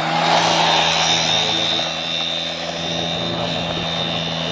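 Small quad bike (ATV) engine running steadily as it pulls away, with a high whine over a low, even drone that eases off slightly as it moves off.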